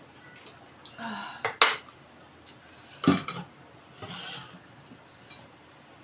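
Cutlery clinking against a bowl while eating noodles: two sharp clinks about one and a half seconds in and another knock about three seconds in, with softer noisy sounds around them.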